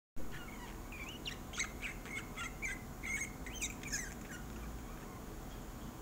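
Budgerigar chirping and warbling in a quick string of short calls, stopping about four seconds in.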